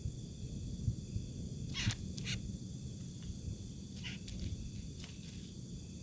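Steady chorus of night insects in high, even tones, with a handful of short scratchy sounds about two and four seconds in as a wild quail is grabbed by hand in the grass.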